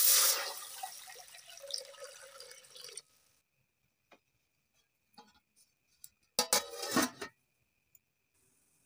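Water poured into a stainless steel cooking pot: a loud splash that thins to a trickle and drips over about three seconds. About six and a half seconds in comes a short clatter of knocks, the glass lid being set on the pot.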